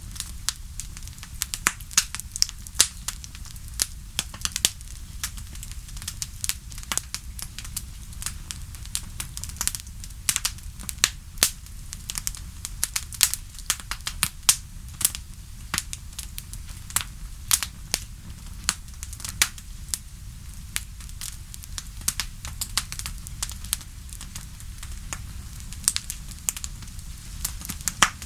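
Wood bonfire crackling: frequent irregular sharp pops and snaps from the burning wood over a steady low rumble of the flames.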